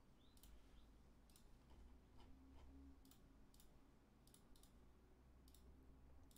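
Faint computer mouse button clicks, about ten, spaced irregularly, while sketch regions are selected one by one.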